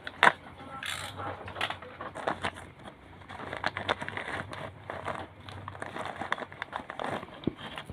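Plastic parts bag crinkling and crackling as it is squeezed and handled in the fingers, a dense run of irregular crackles.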